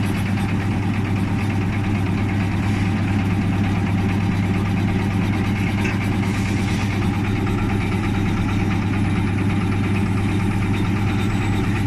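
Electric bread slicer machine running steadily with a constant low hum.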